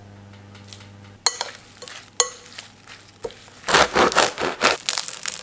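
Two sharp clinks, then a knife sawing through a crusty bread roll: a run of rough, crackling rasps as the blade cuts the crust, the loudest part, starting a little over halfway through.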